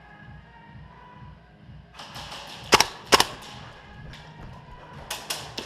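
Airsoft gun shots: two sharp, loud cracks about half a second apart, then several fainter pops.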